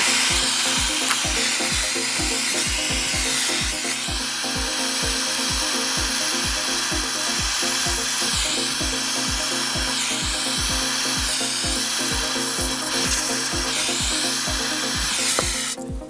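Handheld butane micro torch burning with a loud, steady hiss as its flame heats a copper cable lug for soldering. The hiss shifts in pitch a few times and cuts off just before the end. Background music with a steady beat plays underneath.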